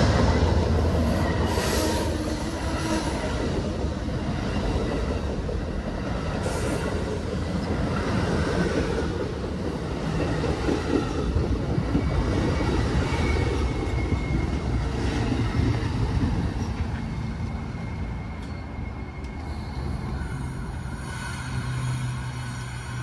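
Amtrak passenger train cars, a baggage car then bilevel Superliner coaches, rolling past at speed with steady wheel-on-rail noise. The sound is loudest at first and fades over the last few seconds as the train pulls away.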